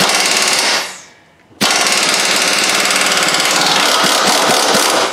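Pneumatic impact wrench hammering as it runs out the bolts holding the upper engine mount to the wheel well and frame: a burst that trails off about a second in, then a longer burst starting about a second and a half in.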